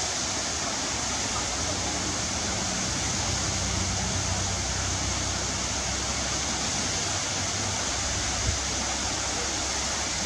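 Waterfall: a steady rush of falling water, with a low rumble underneath and a brief low thump about eight seconds in.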